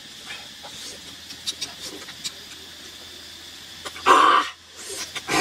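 A few faint small clicks, then about four seconds in a man's loud open-mouthed exclamation lasting about half a second, with a shorter one near the end, as he takes a bite of food.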